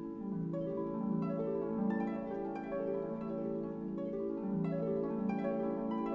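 Instrumental background music with a steady run of plucked notes.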